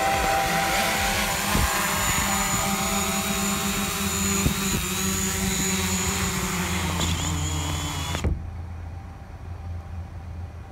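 Small quadcopter drone's propellers whining steadily as it comes down to land. The pitch wavers as it settles, and the motors stop abruptly about eight seconds in.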